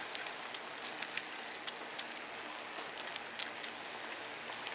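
Mountain bike rolling along a trail: steady tyre and ride noise with irregular sharp clicks and rattles from the bike.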